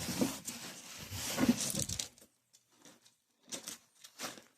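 About two seconds of continuous scuffing and rustling, then evenly spaced footsteps, about one every two-thirds of a second.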